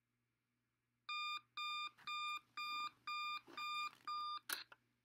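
Electronic wake-up alarm beeping, seven short beeps about two a second starting a second in, then a sharp knock as it stops.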